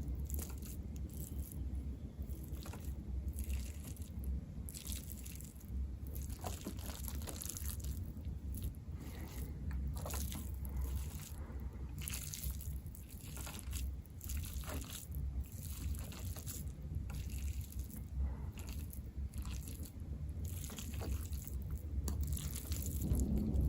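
Close-miked eating sounds: a person chewing and biting food, with scattered wet clicks and smacks over a steady low hum.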